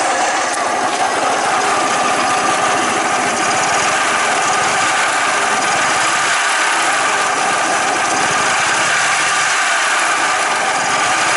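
Suzuki Mollet scooter engine running steadily with an abnormal mechanical noise, a fast even pulsing with a rattle in it.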